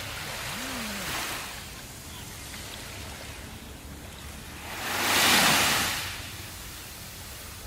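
Ocean surf: waves washing in and out as a steady rush that swells twice, gently about a second in and much louder around five seconds in as a bigger wave breaks.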